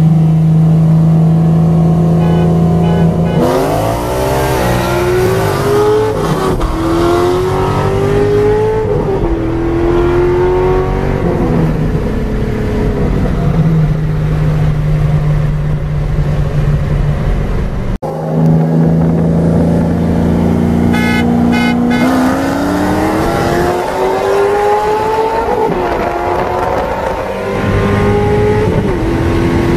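A 2006 Corvette Z06's 7.0-litre LS7 V8 with headers, heard from inside the cabin: running at a steady cruise, then at full throttle, its pitch climbing through the gears and dropping at each upshift. This happens twice, with the first pull starting a few seconds in and the second after a cut about two-thirds of the way through.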